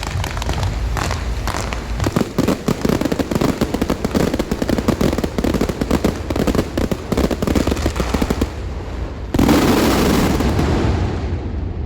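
Fireworks going off in a dense, rapid run of crackles and bangs, easing off near the end; about nine seconds in a sudden loud rushing burst starts and then dies away.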